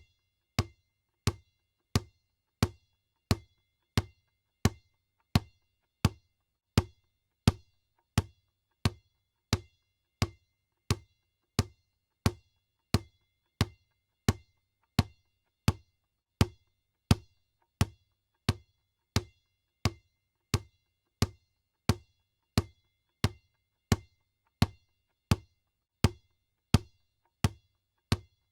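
Basketball bouncing on the floor in a steady rhythm, about three bounces every two seconds, each a sharp thud with a short ring after it.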